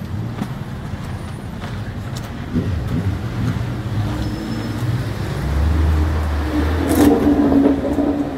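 Street traffic: a vehicle's engine hums steadily, growing louder about five and a half seconds in and loudest near the end as it passes close by.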